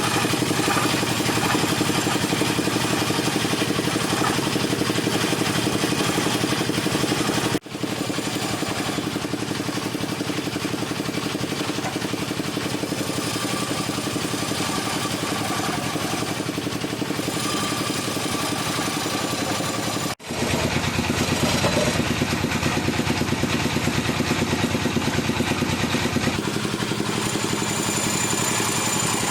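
Wood lathe motor running steadily with a fast pulsing drone, cut off briefly twice by edits.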